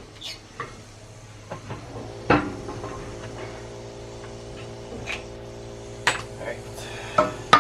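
Steel tools knocking and clanking on the press cup, old bearings and trailing-arm housing while a new rear suspension bushing is pressed in. The sharpest knock comes about two seconds in and a few more near the end, with a steady hum in between.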